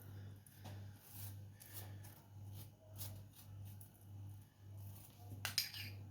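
Almonds being scattered over a jam-glazed cake: faint light clicks, with one sharper crackle about five and a half seconds in. A low hum pulses about twice a second underneath.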